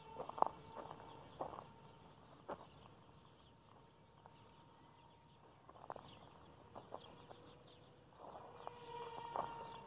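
The RC micro plane's small electric motor gives a faint, steady whine of even pitch. It is louder near the start and grows again near the end as the plane passes closer. A few sharp clicks and faint bird chirps sound now and then.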